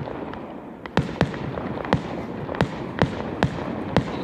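Fireworks going off: a run of about seven sharp bangs at uneven intervals, roughly two a second, over a steady hiss.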